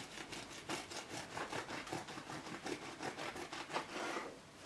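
Bread knife sawing back and forth through a sugar-crusted quark loaf (Quarkstuten), a rasping stroke about four times a second. The strokes stop shortly before the end.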